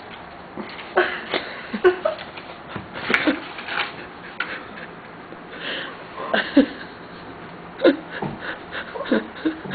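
Irregular clicks, taps and rustles of a small toy and a cardboard box being handled.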